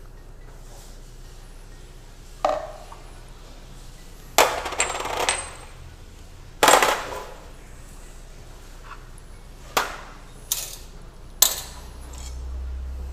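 Kitchen dishes and utensils being handled on a counter: about six scattered clinks and knocks, some ringing briefly, with a quick cluster of them in the middle.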